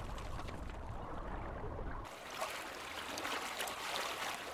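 Open river water running and splashing; about two seconds in the low rumble drops away and the sound turns to a closer, splashier trickle.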